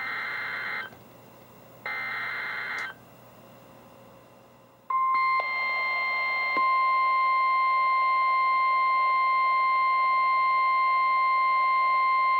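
NOAA Weather Radio SAME header: the last two of three short bursts of warbling digital data tones, about a second apart. After a gap of about two seconds, the steady 1050 Hz Warning Alarm Tone begins about five seconds in. Together they mark the start of a Special Marine Warning broadcast.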